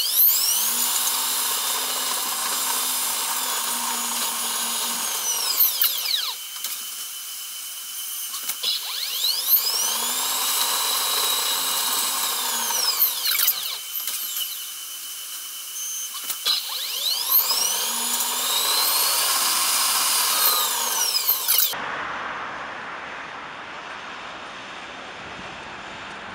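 Electric whine of a Lille metro VAL driverless train, rising in pitch as it speeds up, holding, then falling as it slows, three times over. Near the end it cuts to steady outdoor background noise.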